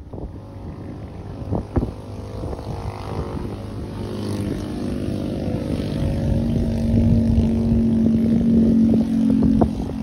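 A motor engine running steadily and growing louder, with a steady hum strongest in the last few seconds that stops near the end, and some wind on the microphone.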